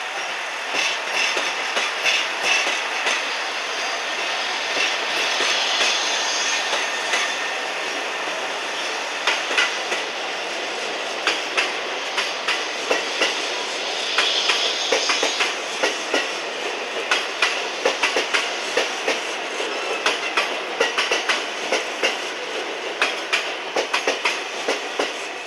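A KiRo 189 'Hanaakari' diesel railcar and a 227 series electric train passing a level crossing, their rolling noise steady at first. About halfway through, the wheels' clacks over the rail joints become sharp and regular.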